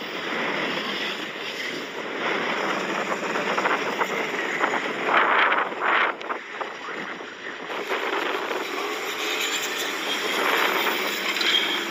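Flatbed pickup truck's engine running under load as it tries to tow a motorhome stuck in soft sand, with surges about five and six seconds in. Wind buffets the microphone.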